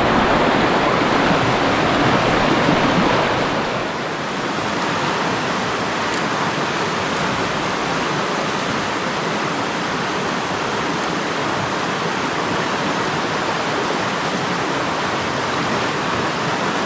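Rushing river water: a steady, loud hiss of flowing water, a little louder for the first few seconds and then even.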